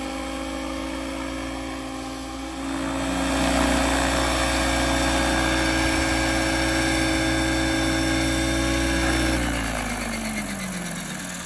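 Radio-controlled scale Huey helicopter's motor and rotors running steadily, louder from about three seconds in. About nine seconds in the pitch starts to fall as the rotor winds down after landing.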